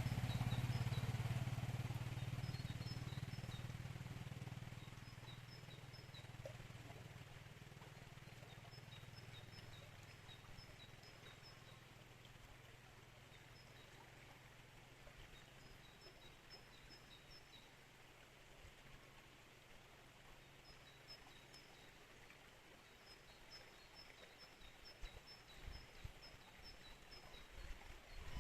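A motor vehicle's engine hum, loudest at the start, fades away over about the first ten seconds. A bird repeats short high chirps in quick runs throughout, over a faint steady rush of river water, with a few low thumps near the end.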